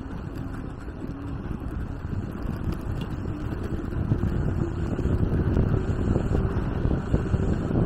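Wind buffeting the microphone of a camera on a moving electric bicycle, a steady low rumble that grows louder about halfway through as the bike picks up speed.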